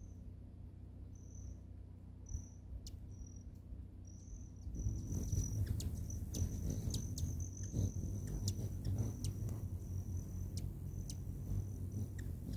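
Hummingbirds hovering around a nectar feeder: a low wing hum that grows louder about five seconds in, with sharp chip calls. A high, thin trill comes in short pieces at first, then runs nearly unbroken.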